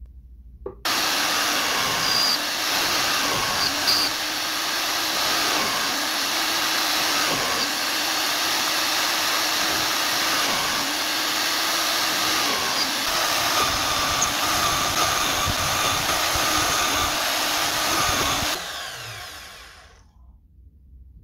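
Electric drill with a spade bit running and boring holes in wood, a steady motor whine and cutting noise. It starts about a second in, runs without a break, and near the end is switched off and winds down.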